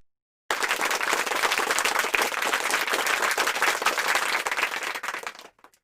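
Applause sound effect: many hands clapping, starting about half a second in and fading out near the end.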